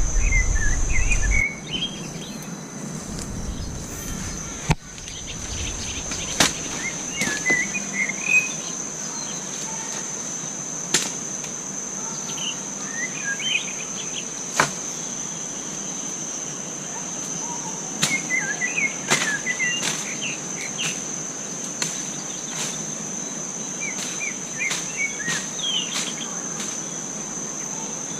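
Forest ambience: insects keep up a steady high-pitched drone while a bird gives short bursts of chirps every few seconds. A few sharp clicks or knocks come at irregular moments, and a low rumble fades out after the first second or so.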